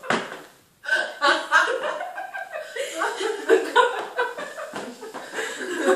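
Several people laughing and chuckling, with bits of chatter. A sharp knock comes right at the start, and the laughter drops away briefly just after it.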